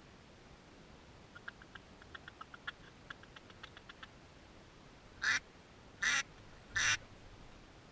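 Three loud, short duck quacks, each falling in pitch, evenly spaced near the end. Before them comes a run of faint, quick clicks.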